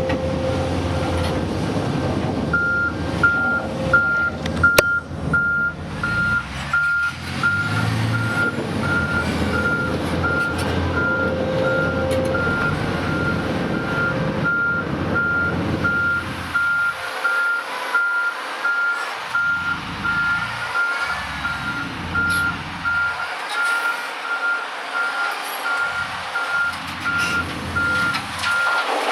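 Heavy mining equipment's back-up alarm beeping at a steady, even pace, starting a couple of seconds in, over the low running of big diesel engines. In the second half the engine noise comes and goes in pulses.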